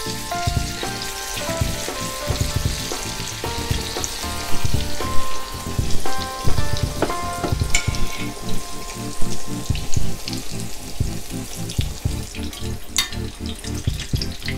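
Batter-coated stuffed ripe banana deep-frying in hot oil in a small kadai: a steady sizzle, under background music with a regular beat. A sharp click comes about 13 seconds in.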